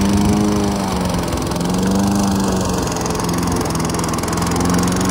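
Toro gas push mower's engine running steadily while cutting through dense, overgrown weeds, its pitch wavering slightly under the load.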